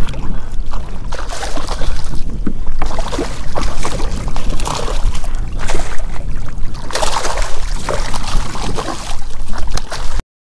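A hooked black drum thrashing and splashing at the surface right beside a kayak as it is led to a landing net, over a heavy rumble of wind on the microphone. The sound cuts off suddenly near the end.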